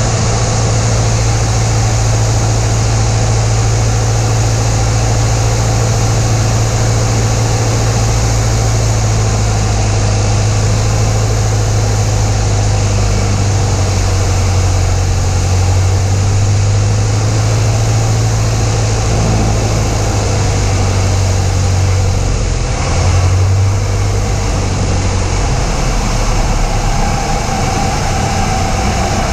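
Cessna 172's piston engine and propeller droning steadily, heard from inside the cabin during the approach and landing, with a brief louder moment about three-quarters of the way through.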